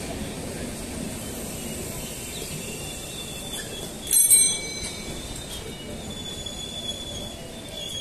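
Indian Railways passenger coaches rolling slowly past with a steady rumble as the train arrives and brakes. About four seconds in there is one short, loud, high-pitched brake squeal, and fainter squeals come near the end.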